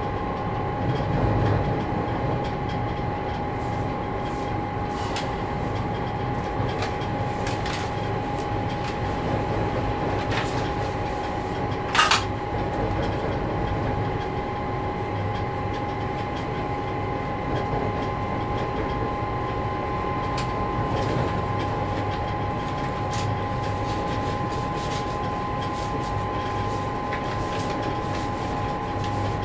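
Diesel locomotive heard from inside its cab while under way: a steady engine drone with two constant high whines, and scattered clicks of the wheels over the track. One short, sharp clank about twelve seconds in is the loudest sound.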